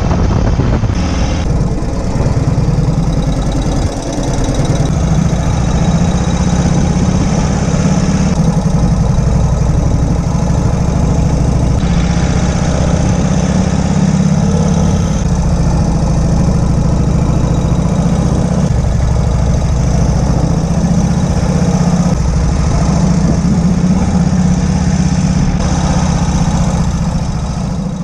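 1951 Indian Chief's flathead V-twin running steadily under way, a deep low rumble with wind rushing over the microphone.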